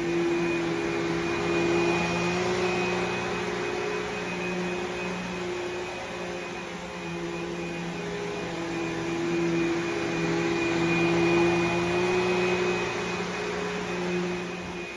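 Vacuum cleaner running steadily, its motor hum shifting slightly in pitch and loudness.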